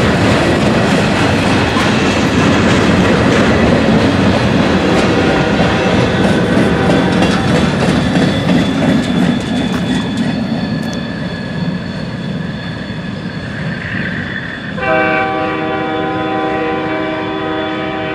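CSX freight train of loaded ash container flatcars rolling past, a steady rumble and clatter of wheels over rail joints. About fifteen seconds in, a multi-chime train horn sounds and holds to the end.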